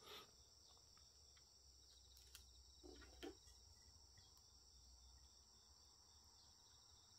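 Near silence: faint room tone with a steady high-pitched whine and a few soft clicks and taps as a metal fork cuts fudge cake and lifts a piece onto a ceramic plate, two of the taps about three seconds in.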